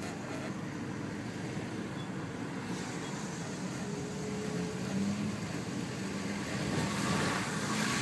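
Car engine and tyre noise while driving on a road, a steady hum that grows a little louder in the second half.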